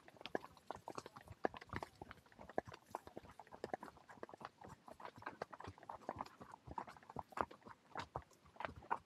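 Horse walking on a trail: hooves clip-clopping in a steady run of short, irregular knocks.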